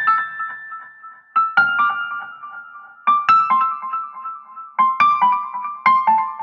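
Solo piano melody in a high register, with no drums or vocals: short runs of notes struck about every one and a half seconds, each left to ring out.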